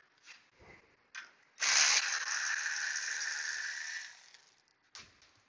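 A few light clicks, then a hissing spray about a second and a half in that lasts about two and a half seconds and tapers off.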